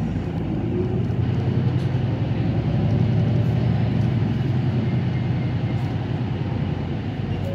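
Nagoya city bus running along the road, heard from inside the passenger cabin: a steady low engine drone over tyre and road noise, a little louder midway.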